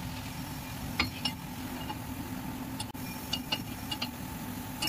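A few sharp metallic clinks of a steel combination spanner on a suspension bolt as it is turned. Two come about a second in and a small cluster comes later, over a steady low hum.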